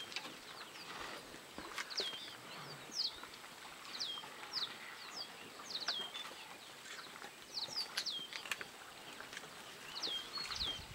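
Small birds calling: short, high whistled notes that slide downward, repeating about once or twice a second in little runs, with a few soft clicks.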